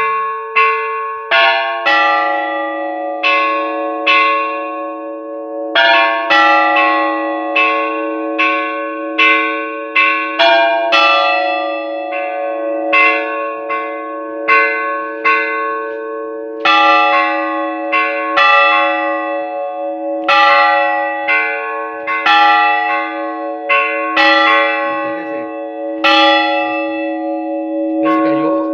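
Church bells rung by hand in a festive repique: several bells of different pitch struck in quick rhythmic phrases, about two strokes a second, over the lingering hum of the larger bells, with short pauses between phrases.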